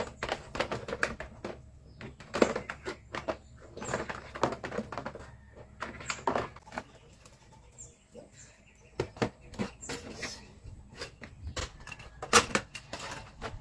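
Hard plastic parts of a portable upholstery spot cleaner being handled and fitted together: irregular clicks, taps and knocks as the tank is seated and the hose is moved, the sharpest knock near the end.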